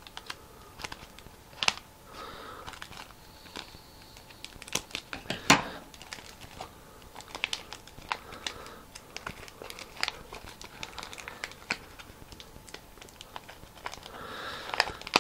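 Paper and wide clear adhesive tape crinkling and crackling as a paper boat is wrapped in tape and pressed down by hand, with scissors snipping the tape at the start. A single sharp click about five and a half seconds in is the loudest sound.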